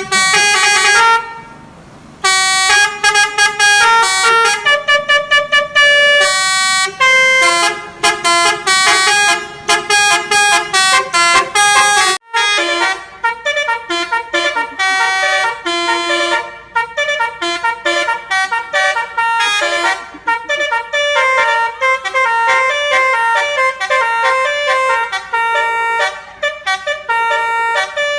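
Telolet basuri horn on a tour bus playing a melody: a fast run of stepped horn notes. It breaks off for a moment about twelve seconds in, then carries on with more notes.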